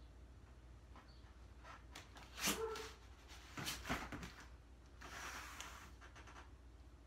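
A dog barks once about two and a half seconds in. A few soft thumps follow as bare feet and hands land on foam floor mats.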